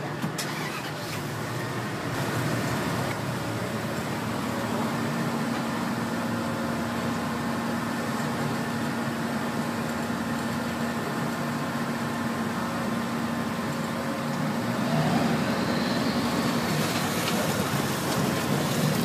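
Steady motor vehicle engine drone with a rushing noise, a low steady hum running through the middle and the level rising a little near the end.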